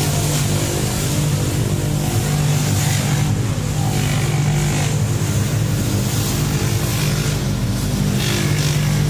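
Steady drone of workshop machinery running, a low hum that holds one pitch at an even level.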